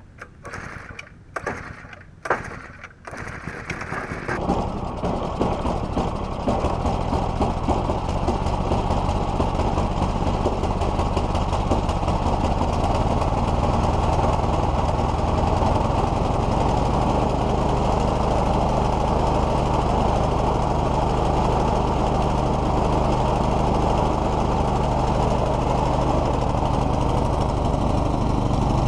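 Two-stage snowblower's small engine being pull-started, with about four short cranking bursts before it catches about four seconds in. It then runs steadily while driving forward towing a log splitter.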